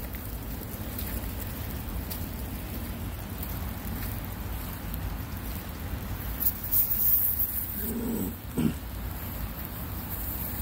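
Steady rain falling, with a low rumble of wind on the microphone. About eight seconds in comes a brief, low pitched vocal sound.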